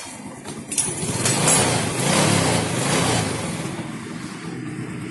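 Motorcycle engine running; it grows louder about a second in and eases off again after about three seconds.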